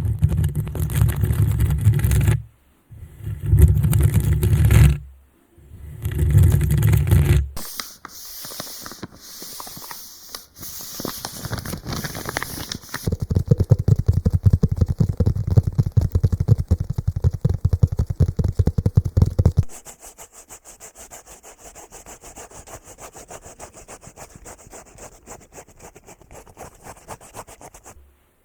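Ear-massage ASMR triggers: something rubbing and scraping right against the microphone. It opens with three heavy rubbing strokes, moves to a lighter hissing brush for about five seconds, then rapid scratching strokes for about six seconds, and ends with fainter quick scratching.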